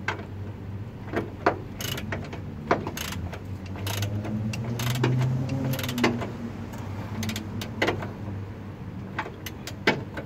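Socket ratchet tightening an engine mount nut: scattered sharp clicks and metal clinks, over a steady low hum that swells around the middle.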